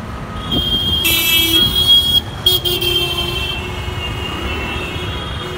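Road traffic running steadily, with vehicle horns honking over it: a loud, high-pitched horn starts about a second in and sounds for a couple of seconds with a brief break, then fades back into the traffic noise.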